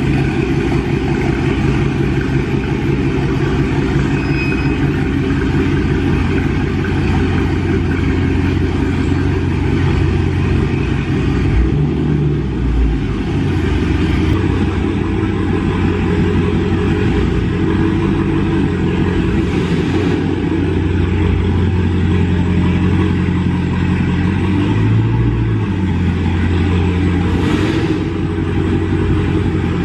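2019 Dodge Charger Scat Pack's 392 HEMI V8 idling just after a cold start, a steady deep exhaust note whose pitch shifts briefly twice.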